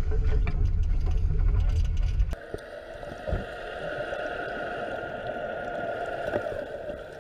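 Heavy wind buffeting on the microphone and rushing water from a sailboat heeling through the waves. After about two seconds it cuts suddenly to underwater, where a handheld electric underwater scooter's motor gives a steady, even whine.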